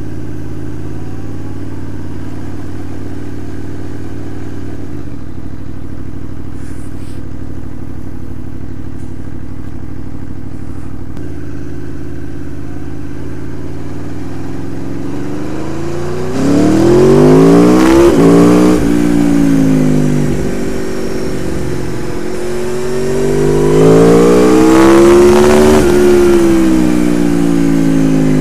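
Aprilia Tuono V4R's V4 engine through its stock exhaust, running at low steady revs, then accelerating hard twice. Each time the pitch climbs steeply and falls away as the throttle closes. The first, about 16 seconds in, is the loudest; the rider puts the peak revs at about 8,000 rpm.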